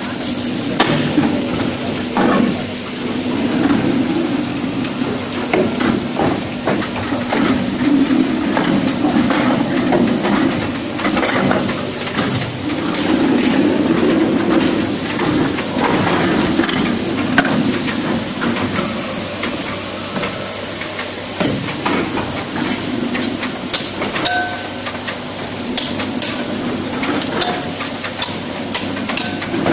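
EVA hot-and-cold sole moulding machine running: a steady hiss and hum with a thin high whine, under repeated metal knocks and clanks of steel sole moulds and press plates. The knocks come thicker near the end.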